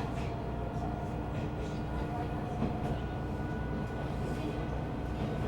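Takachiho Railway diesel train running along the track, a steady low rumble of wheels on rails with an even engine drone and a few faint clicks.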